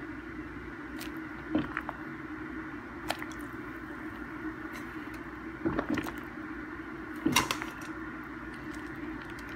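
Dried Chinese herbs being dropped into a ceramic double-boil pot of water, making about four short soft plops and knocks over a steady low hum.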